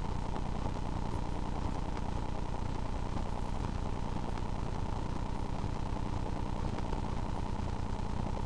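Steady low droning rumble with a constant hum and no distinct events: the ambient sound of a slow-motion recording, stretched into an even drone.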